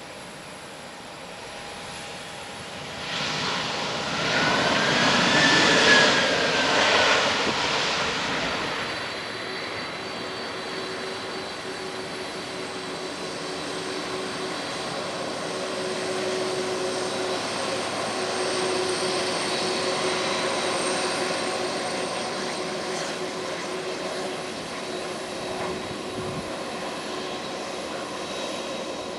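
Jet engines of a taxiing Boeing 767-300ER airliner. The sound swells loudly about four to eight seconds in, with a whine that rises and then falls as it passes, then settles into a steady engine whine.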